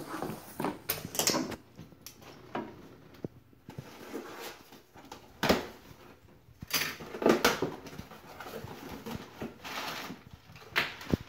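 Cardboard shipping box being opened by hand: packing tape torn off in several rasping strips, with rustling and knocks of the cardboard flaps. A knock right at the start.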